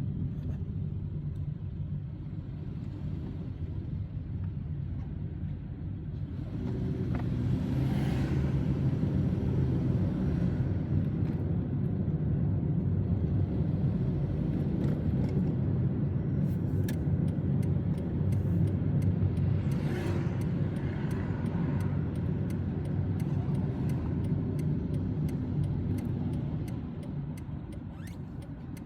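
A car driving on city streets: a steady low rumble of road and engine noise that grows louder about seven seconds in and eases off near the end, with faint regular ticking in the second half.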